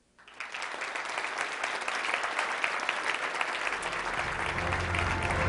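Audience applause in a hall, starting sharply and building steadily.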